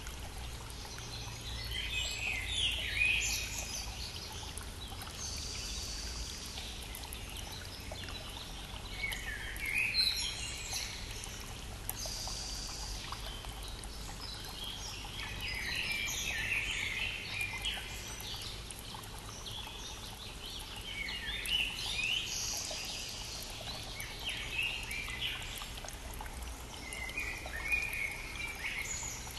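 Songbirds singing short phrases about every six seconds over the steady rush of a brook.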